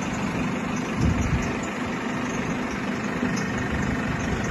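An engine idling steadily, with a slight swell about a second in.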